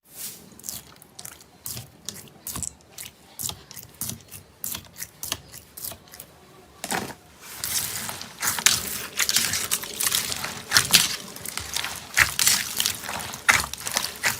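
Slime being worked by hand, with many small wet pops and crackles, a few a second; from about seven seconds in the squishing and crackling grows louder and denser.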